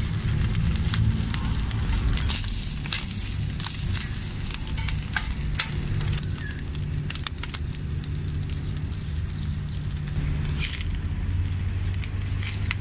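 Chopped beef tripe (tripitas) sizzling and crackling in hot fat on a flat steel griddle as it fries crisp and golden, over a steady low rumble.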